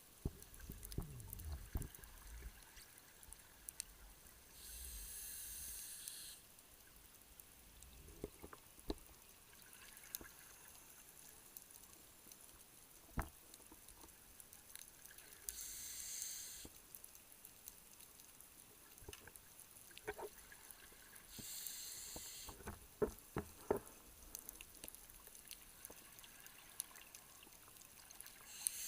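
Underwater sound of a scuba diver breathing through a regulator: a hissing rush of exhaled bubbles about every 6 to 10 seconds, four times, with scattered sharp clicks and pops in between and a brief low rumble at the start.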